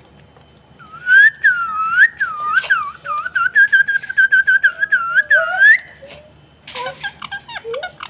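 A long run of quick, swooping whistled notes, about five a second and getting faster, ending on a rising note about six seconds in. Shorter, lower chirps follow near the end.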